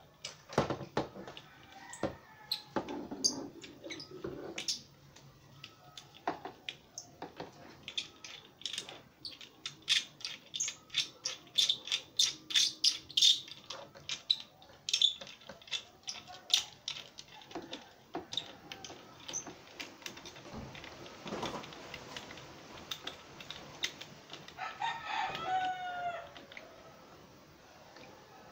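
Repeated sharp clicks and rattles of plastic parts as an LED ring light is worked onto its stand mount. Near the end a rooster crows in the background, a single call that falls away at its close.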